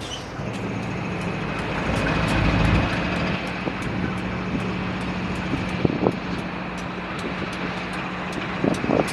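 A large engine running steadily, swelling briefly a couple of seconds in, with a steady high whine over it and faint regular ticking.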